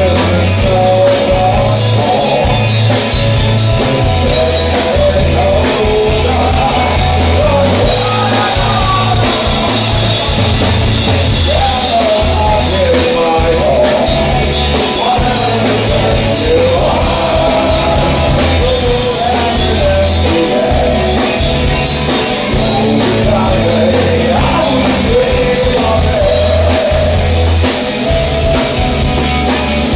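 Dream pop band playing live: drum kit with washy cymbals, bass and guitars, under a voice singing long wavering notes.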